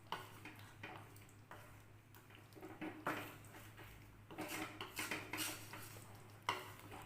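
A spoon stirring and scraping against a cooking pan, with irregular clinks and scrapes as the chicken in its creamy milk sauce is stirred.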